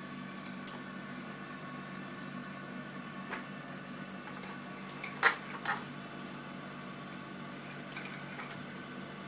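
Frame wire and a wooden beehive frame being handled on a wiring board: a few light clicks and two sharp knocks about half a second apart a little past the middle, over a steady hum.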